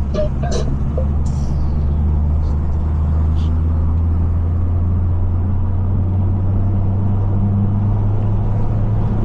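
Straight-piped BMW 540's exhaust and engine droning steadily while cruising, heard from inside the car, with a few faint ticks in the first few seconds.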